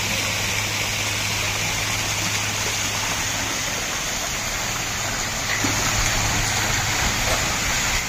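Water pouring from the spouts of a wall fountain and splashing steadily into the basin below, with a low steady hum from the fountain's 1 HP pump motor underneath.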